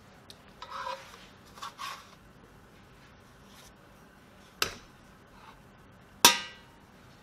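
Kitchen utensils scraping on a nonstick metal baking pan twice in the first two seconds as cookies are lifted out, then two sharp clanks about a second and a half apart, the second the loudest with a brief metallic ring.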